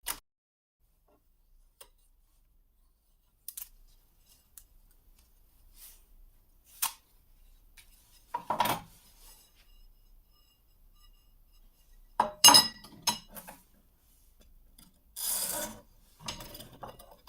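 Hand file rasping across a steel knife blade in a few separate strokes several seconds apart, with faint scrapes and taps between.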